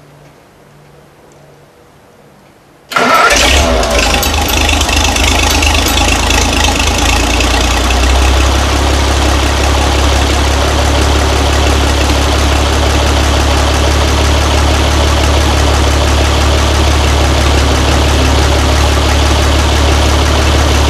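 1950 Oliver 77 row-crop tractor's six-cylinder engine cold-started: it fires suddenly about three seconds in, then runs steadily with a strong low hum.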